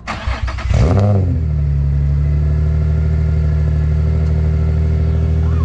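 Nissan 350Z's 3.5-litre V6 cranked on the starter, catching about a second in with a brief flare in revs, then settling into a steady idle through a newly fitted Y-pipe and cat-back exhaust.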